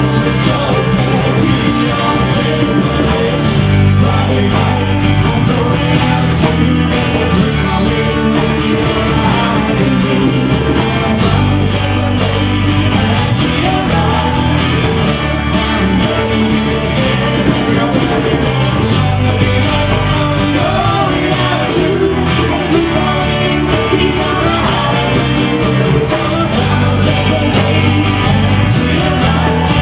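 A live rock band playing loudly and steadily, with strummed guitar prominent.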